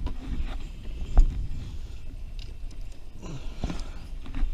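Low wind rumble on the microphone with scattered knocks and bumps on the boat, one sharp knock about a second in and a few more near the end.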